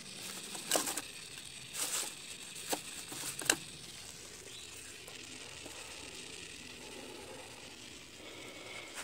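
Dry sticks cracking and crunching as they are pushed into a small wood fire: four or five sharp cracks in the first few seconds, then quieter.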